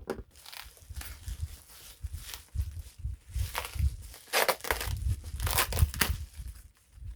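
Packaging wrapped around a power tool being torn open and crinkled by hand in irregular rustling bursts, with dull handling bumps underneath.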